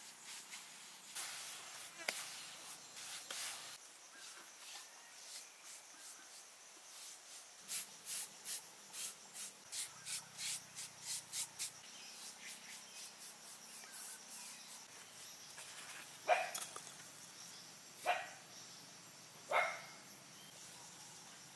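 A puppy barking three short times near the end, about a second and a half apart. Earlier there is a run of quick, even rubbing strokes, about three a second, as hands smooth wet mortar.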